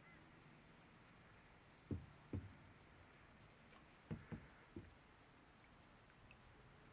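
A steady, high-pitched insect chorus, broken by five short, dull low thumps: two about two seconds in and three about four seconds in.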